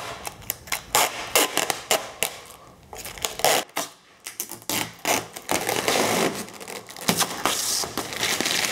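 White adhesive transport protection film being peeled off a car's painted roof: a run of sharp crackles and scratchy rustling, a brief break about four seconds in, then denser crinkling of the plastic film.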